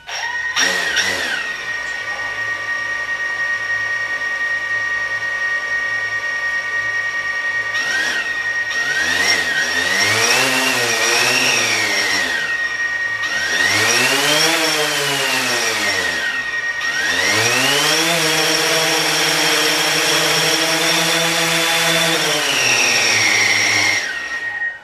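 DJI Phantom 4 Pro quadcopter's four motors and propellers spinning up without lifting off. They start with a steady whine, then rise and fall in pitch several times as they are revved, run high for a few seconds, and cut out near the end.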